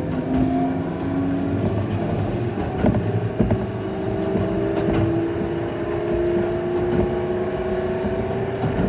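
Electric train's traction motor whining over the running noise, its tone slowly rising as the train gathers speed, with scattered clicks from the wheels on the track. The motor's sound is abnormal, clearly not as it should be.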